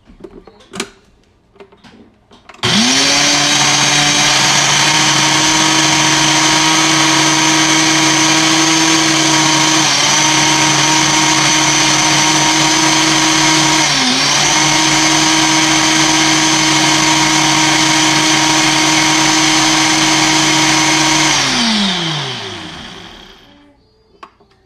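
Countertop blender running at full speed, blending pandan leaves with water into a green purée. It starts abruptly a few seconds in after a few small clicks, dips briefly in pitch twice, then spins down with a falling whine near the end.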